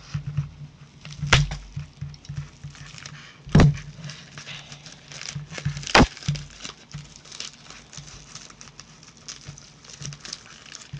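Padded bubble mailer being handled, crinkled and torn open by hand, a hard package to open. Three sharp knocks stand out, about a second, three and a half seconds, and six seconds in.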